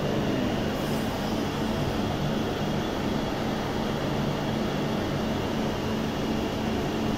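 Steady machinery drone: a low, even hum under a constant rushing noise, as from the electrical and cooling equipment in an electric crane's control room.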